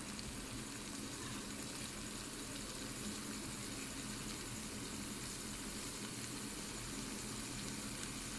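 Noodles frying in oil in a kadhai: a steady, faint sizzle with a low hum underneath.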